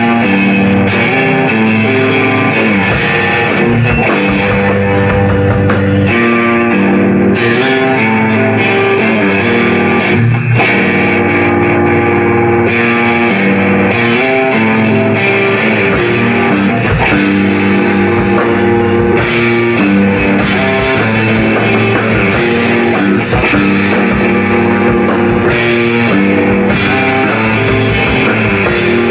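Rock music led by guitars, with bass, playing steadily and changing chords throughout.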